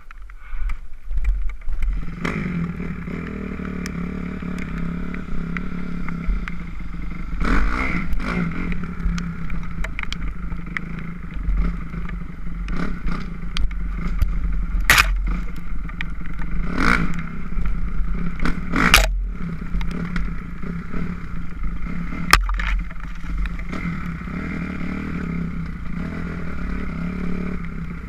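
A 2006 Kawasaki KX250F four-stroke single-cylinder dirt bike engine running, picking up about two seconds in and then holding steady. Several short, sharp clatters cut through it in the middle.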